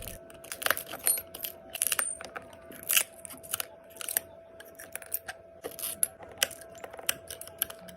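Cracked iPhone back glass being scraped and prised away, a string of irregular crunching clicks and small glassy ticks over a faint steady hum.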